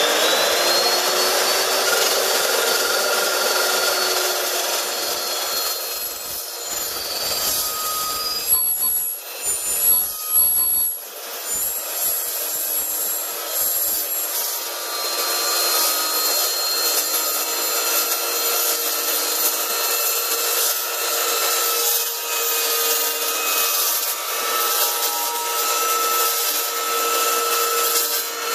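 Evolution S380CPS metal-cutting chop saw with a 15-inch low-RPM blade, running steadily at speed while the blade is fed slowly through 3-inch, 1/8-inch-wall tubing on a 45-degree cut. It makes a continuous grinding cut noise, which turns rough and uneven for a few seconds about a third of the way in.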